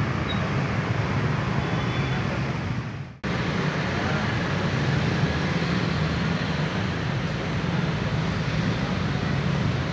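Steady road traffic noise. About three seconds in it fades out briefly and cuts back in abruptly.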